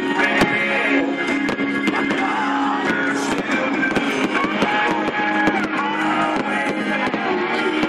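Music with strummed guitar, with sharp firework bangs now and then.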